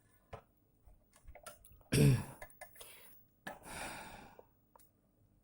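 A brief throat clearing about two seconds in, then a breathy exhale, with a few faint clicks around them.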